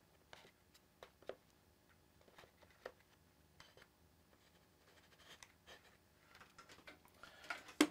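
Faint scattered taps and clicks of wooden cutout pieces being handled and set down on a workbench, busier and louder near the end.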